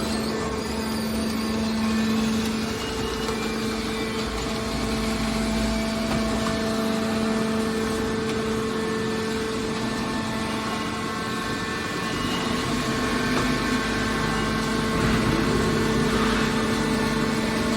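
Hydraulic car body baler running, a steady machine hum with no breaks.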